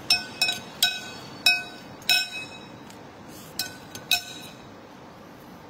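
A metal spoon clinking against a ceramic plate about seven times over the first four seconds, each clink ringing briefly.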